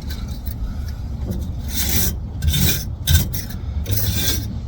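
Wire brush scraping old sealant off the steel mating surface of a differential housing, in about four separate one-way strokes starting about a second and a half in.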